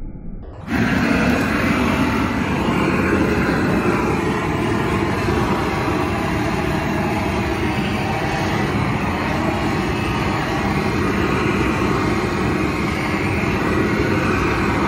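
Hose-fed propane torch burning steadily, a continuous rushing hiss of gas and flame. It comes in abruptly about a second in.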